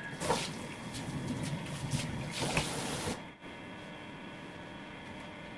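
Kitchen faucet running into a stainless sink, with a few clatters, then shut off suddenly about three seconds in, leaving a steady electrical hum.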